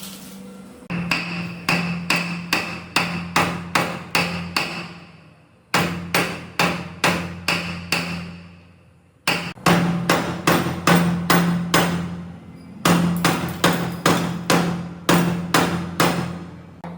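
Hammer blows struck in quick, even runs of about three a second: four runs, broken by short pauses.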